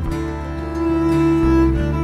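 Background music: a string piece with a cello-like melody over held bass notes.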